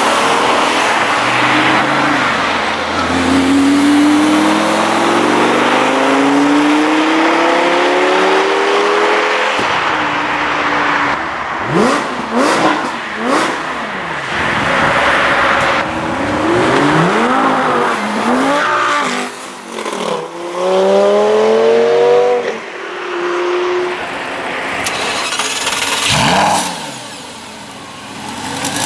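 Sports car engines accelerating hard away from a junction, one car after another: the engine note climbs in pitch through each gear and drops at each upshift, with several cars' revving overlapping in the middle and a few sharp cracks among them. Near the end a lower, steadier engine idle takes over.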